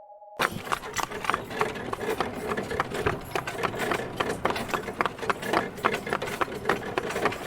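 Horse walking while pulling a wagon: a steady clip-clop of hooves over the continuous noise of the rolling wagon, starting about half a second in.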